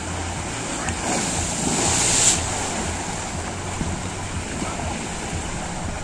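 Water rushing along an enclosed tube water slide under a sliding rider. The rush swells from about a second in to a loud peak a little after two seconds, then settles back to a steady rush.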